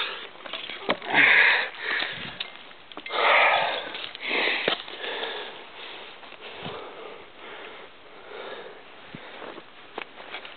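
A climber breathing hard close to the microphone: a few loud breaths in the first five seconds, then fainter ones, with a few small clicks in between.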